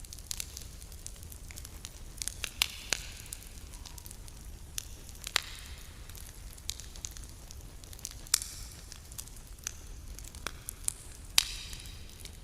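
Campfire crackling: irregular sharp snaps and pops of burning wood, with four louder pops, each followed by a brief hiss, over a steady low rumble.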